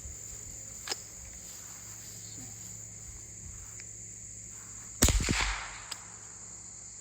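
A single shot from a Tanfoglio Appeal .22 WMR semi-automatic bullpup rifle about five seconds in, with a short echo and a small click about a second later. A steady high buzz of crickets runs underneath.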